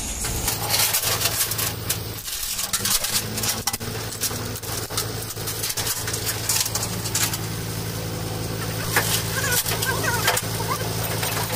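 Steel tie-down chain clinking and rattling against the steel deck of a flatbed tow truck as it is pulled through and hooked, with many short metallic clacks. A truck engine runs steadily underneath.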